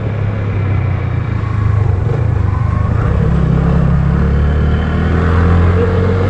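Motorcycle engine running steadily at low road speed, its pitch lifting slightly about halfway through.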